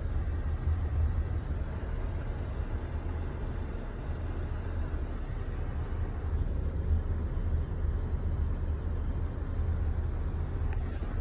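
Car driving along a road, a steady low rumble of engine and tyre noise heard from inside the cabin.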